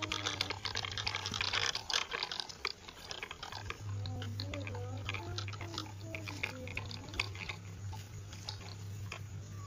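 Wired remote-control toy Mahindra tractor driving over dirt and pebbles, its tyres and metal trolley crackling and clicking. A low hum from its small electric motor drops out for about two seconds, then comes back.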